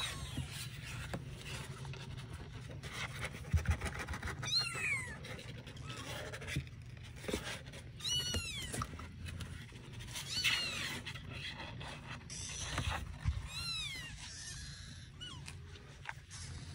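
Young kittens mewing: about five short, high-pitched mews, each rising then falling, a few seconds apart. Scattered knocks and rustles of the kittens moving in the cardboard box.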